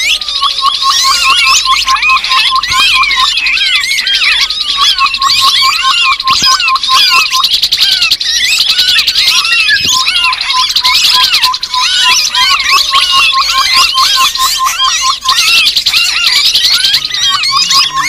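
Grey-headed babbler lure recording: a loud, busy chorus of quick rising-and-falling chirps and chatter. Beneath it runs a train of rapid whistled notes at one pitch, which breaks off and starts again several times.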